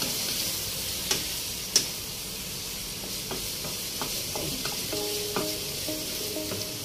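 Squid sizzling in hot oil in a nonstick wok while a wooden spatula stirs it. Two sharp knocks of the spatula on the pan about a second in and just under two seconds in, then lighter taps.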